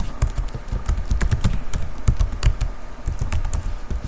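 Typing on a computer keyboard: a quick, irregular run of key clicks and presses.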